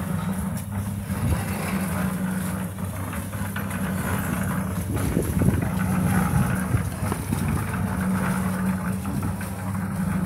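Small engine running steadily at constant speed, a low even hum.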